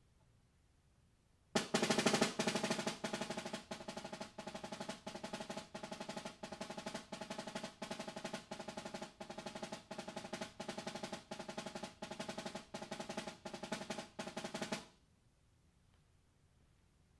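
Snare drum played with sticks in a fast, continuous run of strokes at about five a second, starting about a second and a half in and cutting off sharply near the end.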